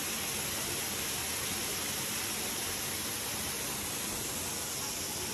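Steady rushing hiss of water falling down a small waterfall, even and unchanging.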